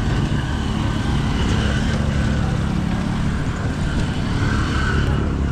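Steady road-vehicle noise: a low engine hum with tyre and road rumble, holding even throughout.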